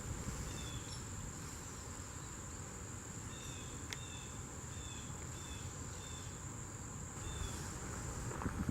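An insect trilling: one steady, high-pitched note that holds unbroken and stops near the end. A few short chirps at a lower pitch come in the middle, over a low, even background rumble.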